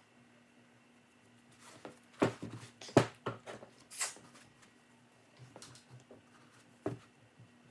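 A few sharp knocks and brief rustles as a football cleat and paper towels are handled on a table, over a faint steady hum.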